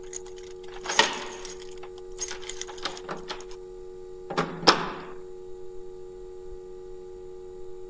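A steady droning hum with short clinking, rattling bursts over it: one about a second in, a run of small clicks a little later, and another burst around four and a half seconds.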